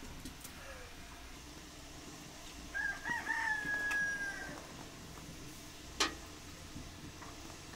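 A rooster crows once about three seconds in, a call held for nearly two seconds. A single sharp click follows a little later.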